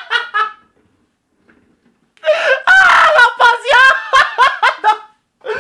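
A man laughing hysterically in rapid, high-pitched bursts. The laugh breaks off about half a second in, then starts again after a pause of about a second and a half and runs on for about three seconds.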